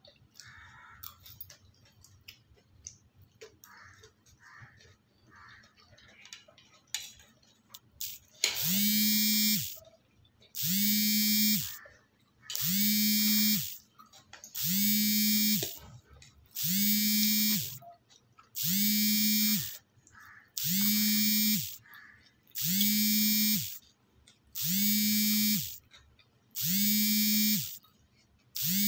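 Faint clinks of forks on plates, then, from about eight seconds in, a loud steady-pitched electric buzz that pulses on for about a second and a half, off for half a second, again and again in an even rhythm.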